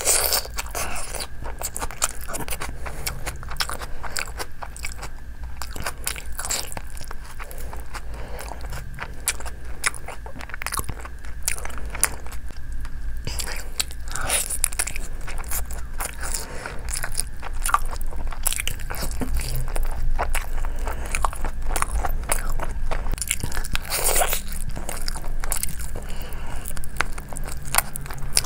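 A person eating with many short, crunchy mouth clicks: biting into and chewing roasted chicken drumsticks and raw onion.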